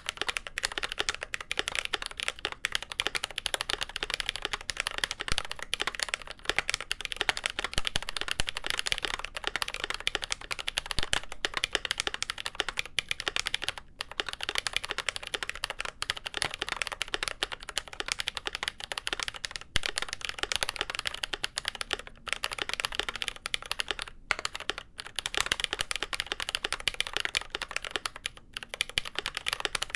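Fast, continuous typing on a GMMK Pro mechanical keyboard with lubed Glorious Panda tactile switches, a polycarbonate plate and GMK keycaps: a dense stream of keystrokes with a few brief pauses.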